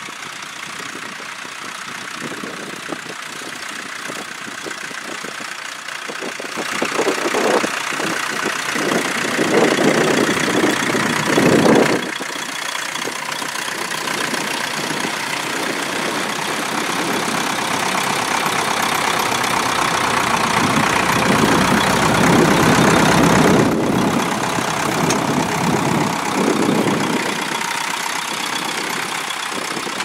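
Vintage Massey Ferguson tractor's engine running as it pulls a mounted plough through stubble.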